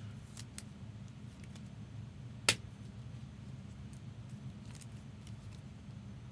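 Trading cards and clear rigid plastic card holders being handled: a few light clicks and one sharp click about two and a half seconds in, over a steady low hum.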